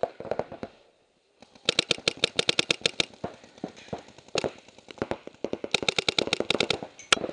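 Paintball markers firing rapid strings of shots, about ten a second, in several bursts with short pauses between. There is a brief lull about a second in.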